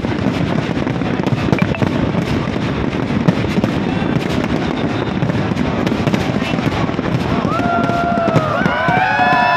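Fireworks display with many shells bursting at once: dense, continuous crackling and popping. Near the end, high gliding tones come in over the crackle.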